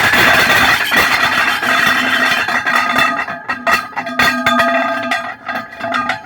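Lathe parting tool cutting through a spinning alloy wheel with a loud rasping noise. About two and a half seconds in, the cut-off rear section breaks free and clatters against the lathe, with repeated metallic knocks and a ringing metal tone that fades near the end.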